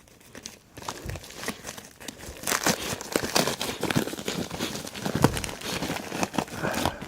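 Plastic packaging crinkling and crackling as it is handled and opened, a dense run of small crackles and ticks.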